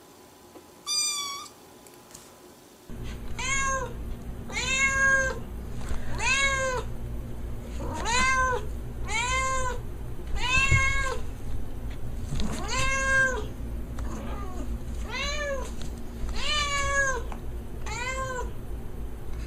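A cat meowing over and over, about a dozen meows roughly a second and a quarter apart, each rising then falling in pitch. A steady low rumble runs underneath from about three seconds in.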